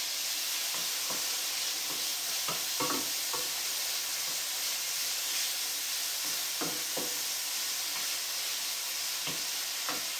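Cut-up thick-sliced bacon sizzling steadily in a stainless steel skillet, with scattered light knocks of a wooden spoon stirring it against the pan.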